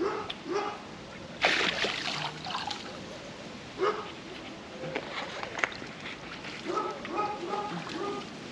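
Pool water splashed by hand, loudest about a second and a half in, followed near the end by a few short whining calls from a wolfdog.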